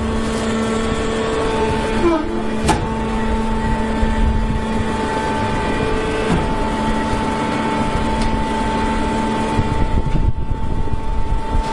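Hydraulic straw baler running: a steady machine hum with several constant tones, joined about a second and a half in by a steady higher whine, and a single sharp click near the third second.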